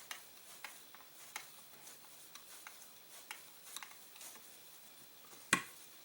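Faint, irregular small clicks and taps of hands handling the Circuit Judge's parts, with one sharper click about five and a half seconds in.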